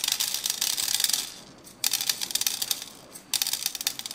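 Small dried spice berries pouring from a glass tube and rattling onto a stainless steel tray, a dense patter of hard clicks. It comes in three pours of about a second each, with short pauses between them.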